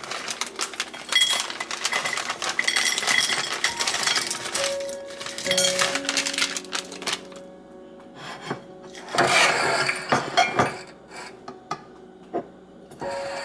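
A plastic bag of dried fruit crinkling and rustling as it is torn open and shaken, with the fruit pieces clinking as they land on a ceramic plate.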